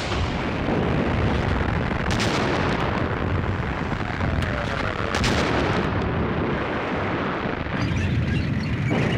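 Artillery fire: a continuous low rumble of guns, with two sharp cannon shots about two and five seconds in.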